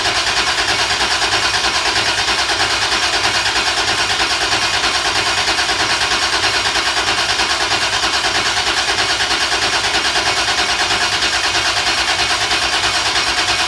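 Toyota 2JZ-GTE inline-six being cranked over on the starter without firing, an even, rapid pulsing, to prime the oil system and build oil pressure before its first start.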